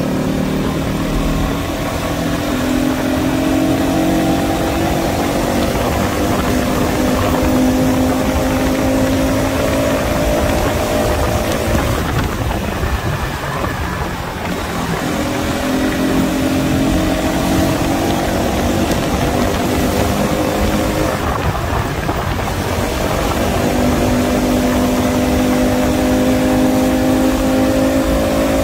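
Motorcycle engine running while riding, its note climbing slowly as the bike pulls. The note drops away twice, about twelve and twenty-one seconds in, then picks up again. Wind rushes over the microphone throughout.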